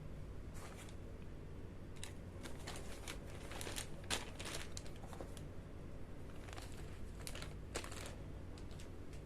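Unboxing packaging being handled: rustling and crinkling with scattered sharp clicks and taps, busiest in the middle and again near the end, over a steady low hum.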